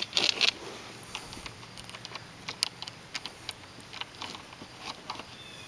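Scattered faint clicks and brief rustles of a braided rope being handled and pulled through a small plastic jam cleat on a plastic hull.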